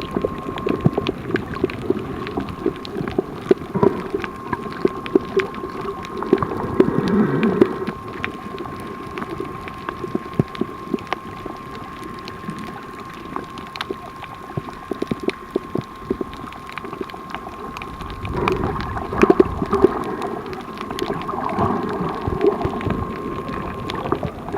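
Muffled underwater sound: water moving against the microphone with many small clicks and a steady high-pitched whine. The water noise swells twice, about a third of the way in and again near the end.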